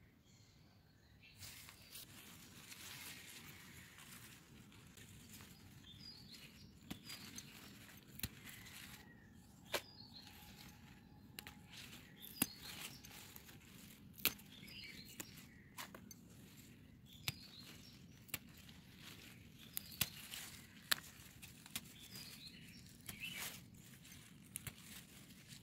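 Leutia greens being picked by hand: the foliage rustles, and stems snap off with irregular sharp clicks.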